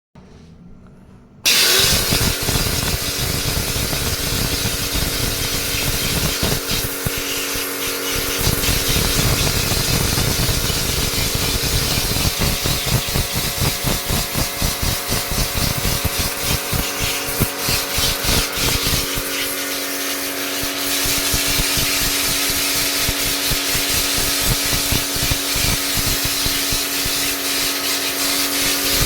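A motor-driven machine starts abruptly about a second and a half in and keeps running: a steady motor hum with a loud, even hiss over it.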